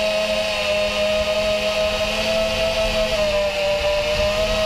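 FPV racing quadcopter's four brushless motors (DYS 2207 2300KV) spinning 5-inch tri-blade props, a steady loud whine that rises and dips slightly in pitch with the throttle, recorded from on board the drone.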